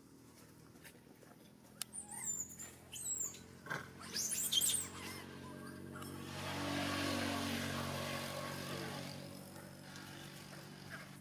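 Baby monkey giving a string of high, squeaky calls, the loudest near the middle. Afterwards a steady rushing noise with a low hum swells and fades.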